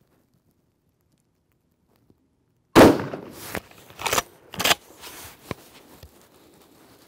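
A single shot from a Beretta BRX1 straight-pull rifle in 6.5 Creedmoor about three seconds in. It is followed by several sharp metallic clacks as the straight-pull bolt is worked back and forward to chamber the next round.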